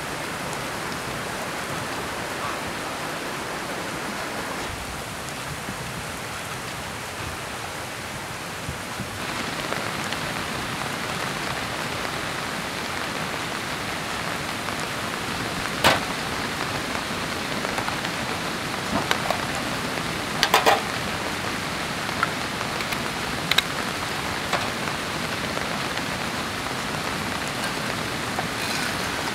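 Rain falling on a fabric camping tarp overhead: a steady hiss of drops that grows heavier about nine seconds in. Several sharp knocks stand out in the second half.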